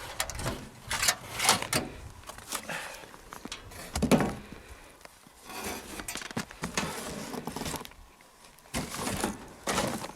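The metal tent stove and its heat screens being handled and taken apart: irregular metallic clinks, rattles and knocks, the heaviest one about four seconds in.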